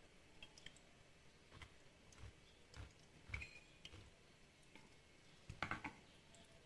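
Faint, scattered clicks and light taps of a metal ladle pressing lemon pulp through a mesh sieve and against its bowl, with a slightly louder cluster of taps about five and a half seconds in.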